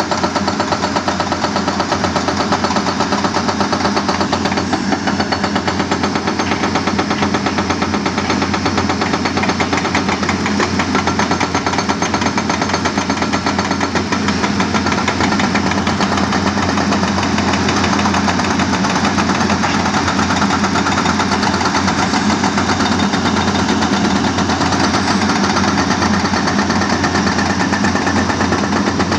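Excavator-mounted hydraulic rock breaker hammering hard rock in a fast, steady run of blows over the excavator's running diesel engine.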